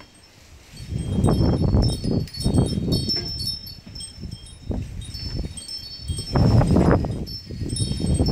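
Wind chime ringing with many overlapping high, clear tones. Two loud swells of low wind rumble on the microphone come in about a second in and again from about six seconds.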